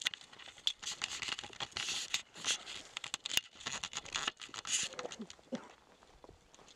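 Rustling and crackling of footsteps pushing through long grass and brush, busy for about five seconds and then dying down.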